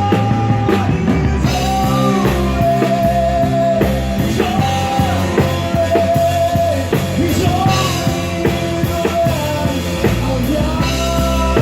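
Live band of electric guitar, bass guitar and drums playing a gospel rock song between sung lines. A melody line holds and bends, and a singer comes back in with one word about seven seconds in.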